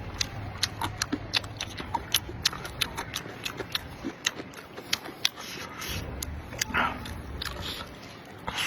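Close-miked chewing: a person eating with many small wet mouth clicks and smacks, a few each second, with a brief louder rustle of breath or slurp about seven seconds in.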